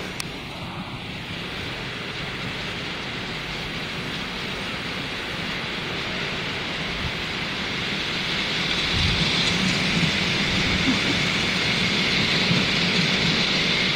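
Miniature ride-on steam locomotive running along its small-gauge track, growing louder as it comes close over the second half, over a steady hiss.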